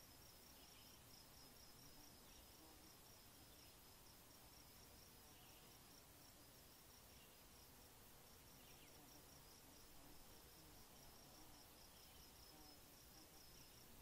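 Faint insect chirping: a high, rapid, even pulsing that pauses briefly near the middle, over a soft hiss.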